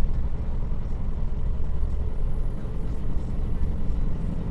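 Truck's diesel engine and road noise heard from inside the cab while driving at speed, a steady low rumble.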